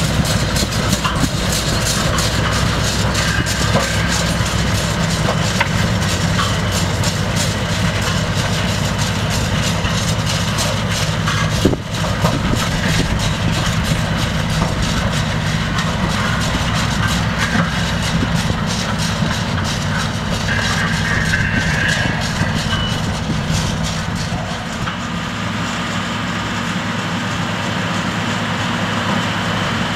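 A sugar beet harvester at work behind a Case IH tractor: the tractor's diesel engine drones steadily under a constant clatter of the elevator chain and beets tumbling into a truck box. There is one sharp knock about twelve seconds in, and the engine drone drops off in the last few seconds.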